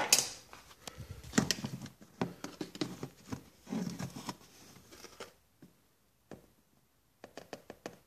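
Plastic coffee jar and measuring scoop being handled: irregular clicks, knocks and scraping rustles as the scoop is dug into the ground coffee, dying down about five seconds in, then a few light clicks near the end.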